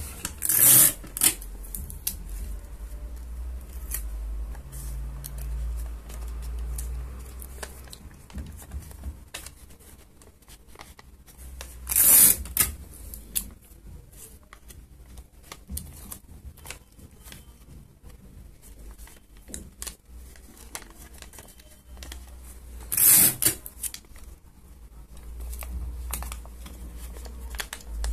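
Paper and card being handled and fitted together by hand, with three short, loud rips about eleven seconds apart: about a second in, in the middle and near the end.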